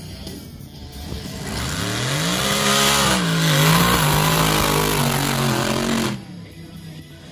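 Mud-racing truck's engine revving hard under full throttle on a mud-pit run, its pitch climbing steeply about a second in and then held high and wavering. The sound cuts off abruptly about six seconds in.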